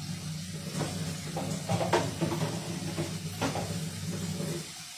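Thick curry sauce simmering in a pan, bubbling and popping several times over a steady low hum that cuts off near the end.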